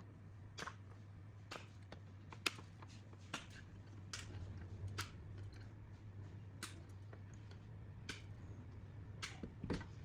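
Irregular light clicks and taps, about a dozen, with the sharpest near the middle and a pair near the end, over a steady low hum: small parts and tools being handled during the scooter repair work.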